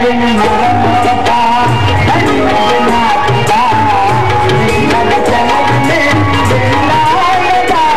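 Live accompaniment music for a stage dance: a drum keeps a steady rhythm under a wavering melody.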